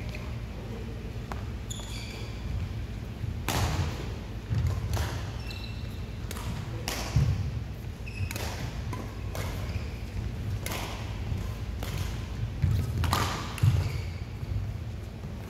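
Badminton rally: the shuttlecock is struck sharply by the rackets every second or two, each hit ringing in the hall's echo, with court shoes squeaking and feet thudding on the court between shots.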